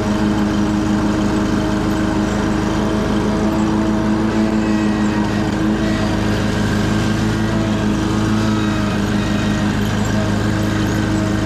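Commercial lawn mower engine running steadily at speed while the mower moves along and cuts grass.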